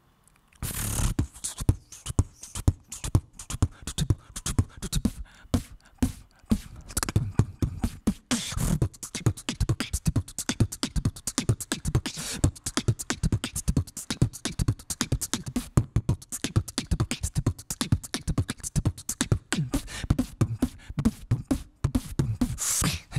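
Solo human beatboxing into a handheld microphone: a fast, dense stream of percussive mouth sounds mixed with low hummed bass tones, starting about half a second in.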